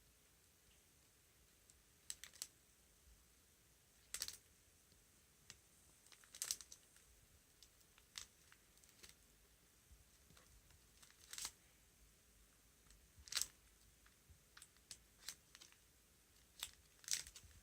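Photo prints and their plastic sleeves being handled: a dozen or so short crinkles and clicks at irregular intervals, louder about four, six and a half, eleven and a half and thirteen and a half seconds in, over near silence.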